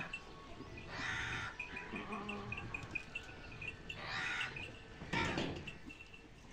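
A crow cawing three times, harsh calls about a second in, at about four seconds and just after five, over a small bird's rapid, evenly repeated high chirping.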